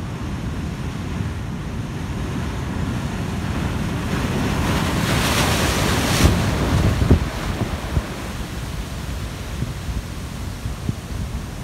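Surf breaking and washing over shoreline rocks, with wind buffeting the microphone. About halfway through a wave crashes close by, its spray hissing loudly and cutting off suddenly, followed by a few low thumps as the water surges through the rocks.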